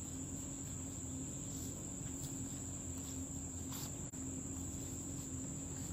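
Insects trilling steadily on one high pitch, over a low steady hum, with a single faint click about four seconds in.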